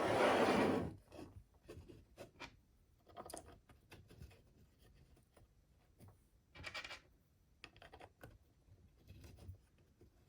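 Wooden stand pieces being fitted together by hand, with a hand screwdriver starting the screws: a loud wood scrape in the first second, then scattered short scrapes and clicks.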